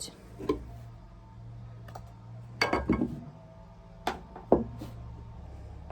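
Short clinks and knocks of glassware and small utensils being handled while a liquid medicine is diluted: a quick cluster about two and a half seconds in, then two single knocks about a second later.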